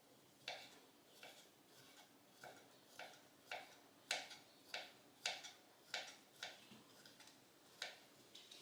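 Knife chopping on a cutting board: a run of sharp, unevenly spaced chops, about two a second.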